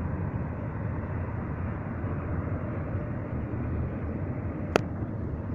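Union Pacific intermodal freight cars rolling past at speed: a steady rumble of steel wheels on rail, with one sharp click near the end.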